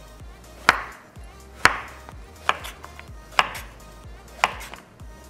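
Chef's knife chopping zucchini on a wooden cutting board: five sharp knocks of the blade striking the board, about one a second.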